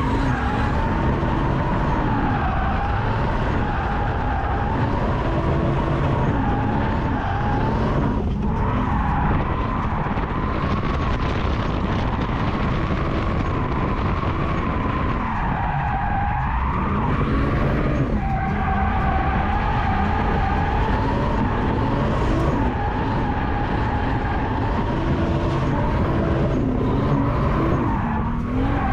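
Drift car being driven hard: its engine note rises and falls with the throttle while the tyres skid, with brief lifts off the throttle a few times.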